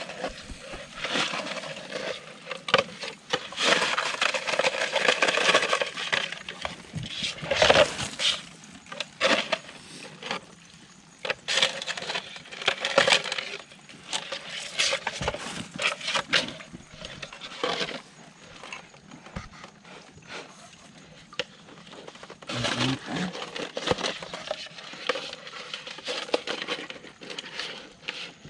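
Handling noise from a woven plastic sack and a fishing net being worked by hand: rustling, with scattered small knocks and clinks at irregular intervals.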